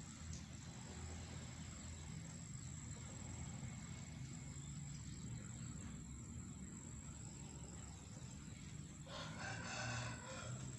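A rooster crows once, a call of about a second and a half near the end, over a steady high chirring of crickets.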